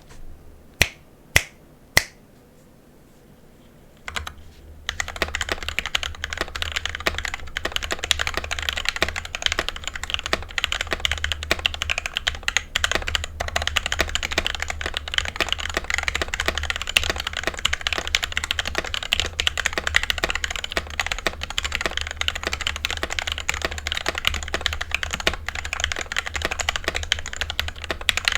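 Custom mechanical keyboard with lubed Gateron Black linear switches and XDA keycaps in a cheap case being typed on fast and continuously, after three sharp single clicks near the start. The space bar ticks, and there is a low thumping from the table under the keystrokes.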